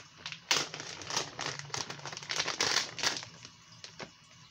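Plastic packaging of a soft-plastic fishing bait crinkling in irregular bursts as it is handled, loudest a little past halfway.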